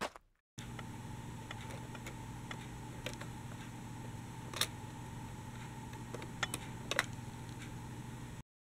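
A steady low electrical hum, with a handful of faint sharp clicks through it, cutting off abruptly near the end.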